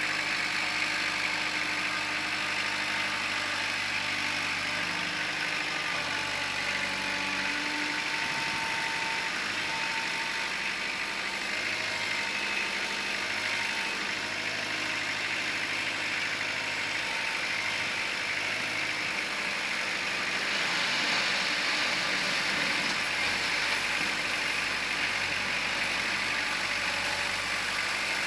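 Kubota L4600 tractor's diesel engine running steadily, its note shifting slightly and getting louder about twenty seconds in.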